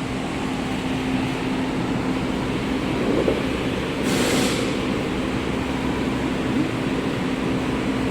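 Ford engine idling steadily with the knocking at idle that is being diagnosed, described as sounding like stones rattling. A brief hiss rises over it about four seconds in.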